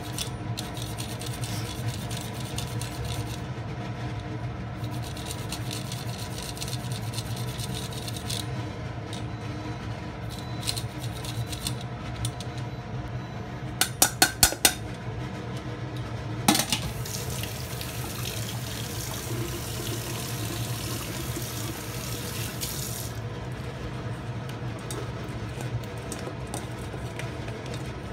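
Ginger scraped on a plastic grater over a stainless steel bowl in repeated scratchy strokes. About halfway through, the grater is tapped sharply against the bowl four times to knock off the pulp, then tap water runs into the bowl for several seconds.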